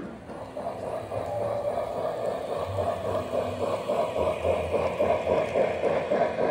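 Toy electric train, a model steam locomotive pulling boxcars, running along the track, its motor and wheels humming and rattling, getting louder as it passes close by.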